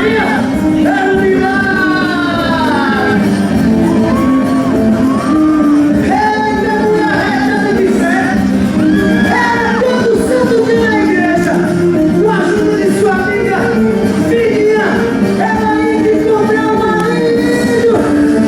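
Loud music with a singing voice for a quadrilha junina dance performance, with shouts and whoops over it.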